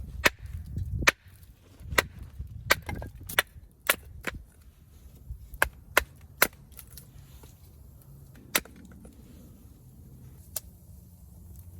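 Campfire crackling, with sharp irregular pops and snaps that come thick for the first five seconds, then only now and then.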